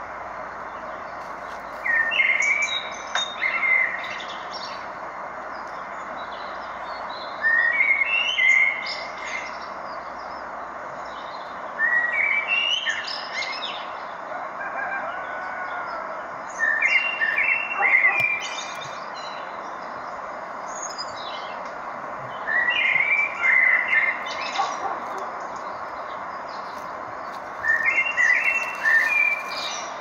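A songbird singing the same short phrase over and over, six times, each song about two seconds long with a pause of a few seconds between, over a steady rushing noise.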